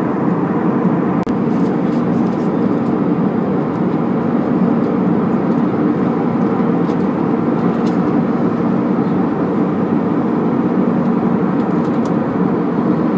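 Steady engine and airflow noise inside the cabin of an Airbus A321 airliner at altitude, an even rushing din with a faint steady hum in it; it drops out for an instant about a second in.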